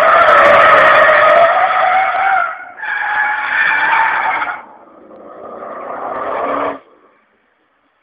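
Car tyres squealing in a long skid, with wavering pitch. The squeal breaks off briefly about two and a half seconds in, comes back, then turns quieter and builds again before cutting off abruptly about seven seconds in.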